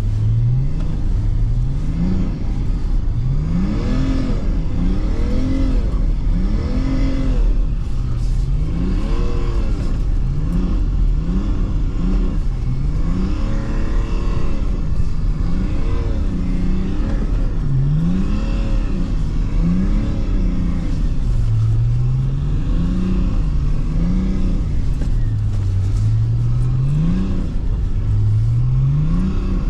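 BMW E39's diesel engine heard from inside the cabin, revving up and dropping back over and over, more than a dozen climbs in pitch, each rise followed by a quick fall, as the car is driven hard on snow.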